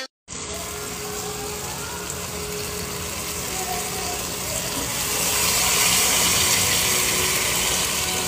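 Steady hissing noise from a pot cooking on a stove, getting louder about halfway through.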